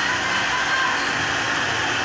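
Steady street din of traffic and crowd noise, with no single sound standing out.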